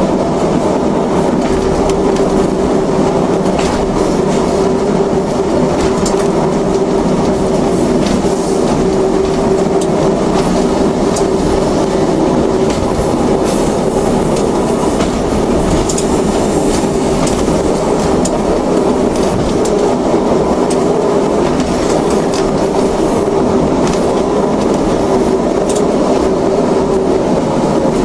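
Regional diesel passenger train running steadily, heard from inside: a continuous engine and running hum with irregular clicks of the wheels over the rail joints.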